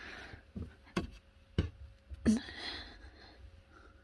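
Handling noise: four short knocks or clicks within about two seconds, with faint rustling between them.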